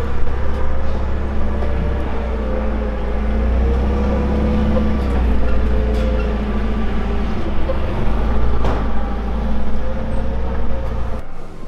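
Forklift engine running steadily, a low rumble with a faint drifting whine over it and a single knock about three-quarters of the way through; the sound cuts off just before the end.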